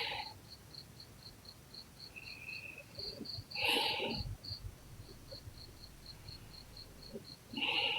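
Someone asleep snoring, one breath about every four seconds, over a cricket chirping steadily at about four chirps a second.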